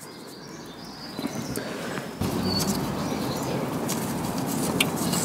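Close rustling and handling noise with a few sharp metal clicks, as a spanner is worked on a water pump bolt in the engine bay. The rustling gets louder about two seconds in and stays up.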